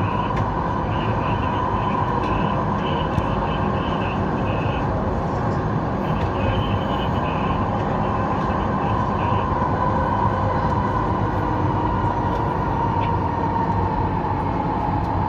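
Incheon Subway Line 2 metro train running through a tunnel, heard from inside the front car: a steady rumble of wheels on rail under a steady traction-motor whine that sinks slightly in pitch over the last few seconds.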